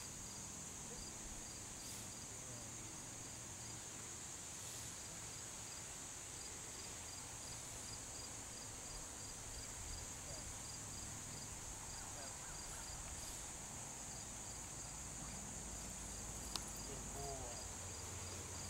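Steady high-pitched chorus of insects, with another insect chirping at an even rate of about two chirps a second. A single sharp click sounds near the end.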